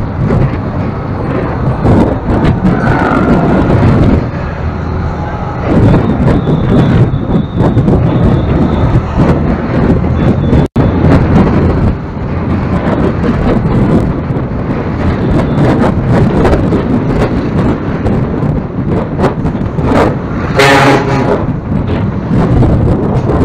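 Wind buffeting the microphone of a camera riding through town traffic, mixed with vehicle engine and road noise. Near the end a vehicle horn honks once, for about a second. The sound cuts out for an instant near the middle.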